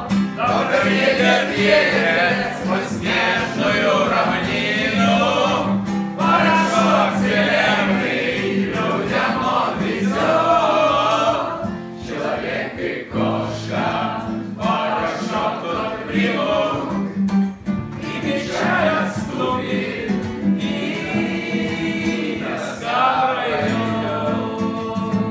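A mixed group of young men's and women's voices singing a song together in chorus, unaccompanied or nearly so.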